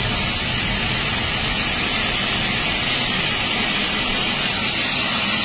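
Loud steady hiss of a train's emergency air brake venting during an emergency stop, over the low rumble of the moving train.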